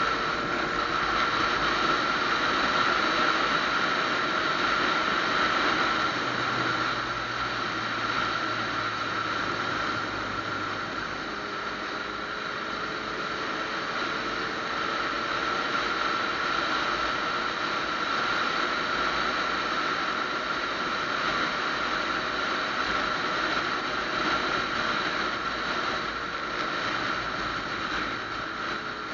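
Steady wind rush and the running drone of a Yamaha FZ-09's three-cylinder engine while riding at a steady road speed, the engine note drifting slowly up in pitch midway. A steady high whine runs over it.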